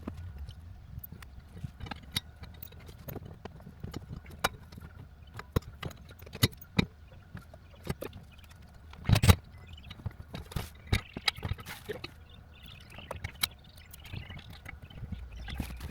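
Irregular clicks, taps and knocks of tools and metal parts being handled while a harness bar is fitted to the seatbelt mounts inside a car, with one heavier thump about nine seconds in.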